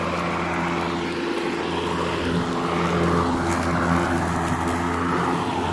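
Battery-powered electric lawn mower running steadily as it cuts grass, its motor and spinning blade giving an even hum and whir.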